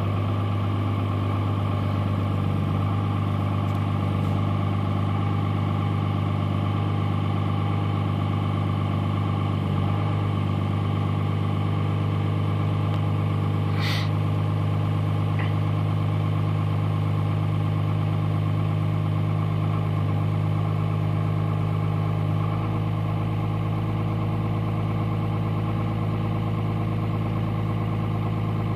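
2003 Dodge Ram's 5.9-litre Cummins inline-six turbo-diesel idling steadily, heard from inside the cab, shortly after a cold start at about −16 °C with no block heater. A single sharp click about halfway through.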